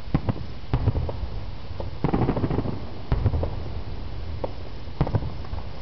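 Fireworks shells bursting at a distance: irregular sharp bangs and pops, thickest about two seconds in, over a steady low rumble.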